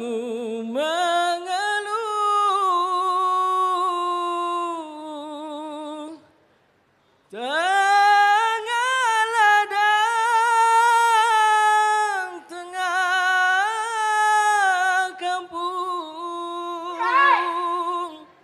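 A dikir barat lead singer's solo voice singing long, ornamented phrases with no accompaniment: two long lines with a short break about six seconds in.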